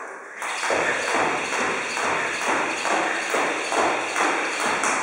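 Jump rope being skipped: a regular slap and thud of rope and landing feet, about two a second, starting about half a second in.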